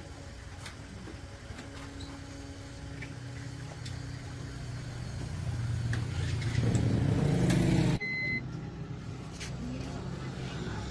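A motor or engine running with a steady hum that grows louder over several seconds, then cuts off abruptly about eight seconds in, followed by a short high beep.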